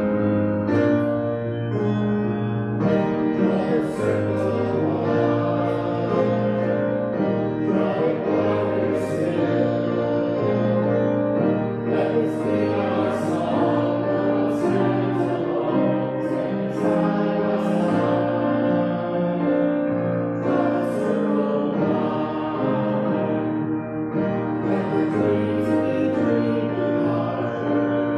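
Voices singing a hymn together over keyboard accompaniment, in sustained notes that move in step with the melody.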